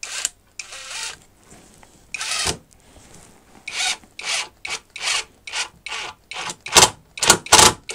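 Metabo SSD 18 LT 200 BL 18 V brushless impact driver, on its lowest setting, driving a screw through plasterboard into wood in a string of short trigger bursts. The bursts start sparse and come quicker and louder toward the end, about three a second, as the trigger is feathered to set the screw without breaking the plasterboard.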